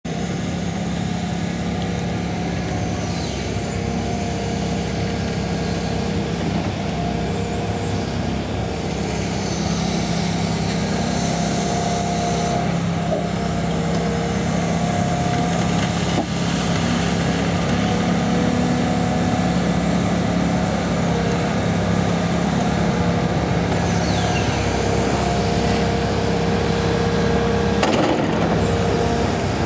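Hitachi Zaxis 280LC crawler excavator's diesel engine running steadily under digging load, with a steady hydraulic whine over the engine note. A sharp knock sounds near the end.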